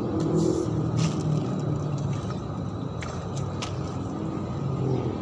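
Steady low engine rumble with a wavering hum running through it, and a few light clicks scattered through it.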